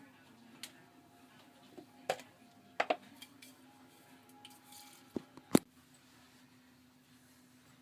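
A handful of short, sharp clicks and taps, two close together about three seconds in and the loudest one a little past halfway, over a faint steady hum.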